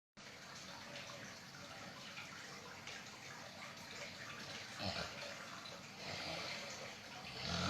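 Snoring: slow, noisy breaths, with a louder snore about five seconds in and longer, louder ones from about six seconds to the end.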